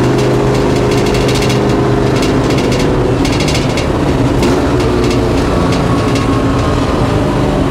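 A 1965 Ford F100's 302 small-block Ford V8 running steadily at cruise, heard from inside the cab, with a few short spells of rattling over the engine note.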